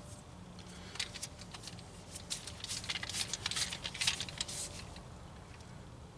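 Irregular metallic clicks and rattles of a socket wrench being fitted and worked on a wheel hub bolt, for about four seconds.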